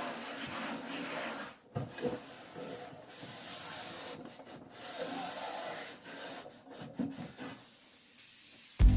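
Household cleaning sounds: a cloth or brush rubbing and wiping over a hard surface in uneven strokes, with a few light knocks. Background music comes in near the end.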